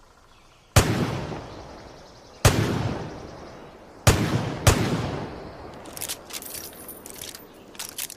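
Four shots from a Smith & Wesson Model 29 .44 Magnum revolver, each with a long echo dying away; the first three come about a second and a half apart, and the fourth follows the third after about half a second. Near the end come several lighter clicks and knocks.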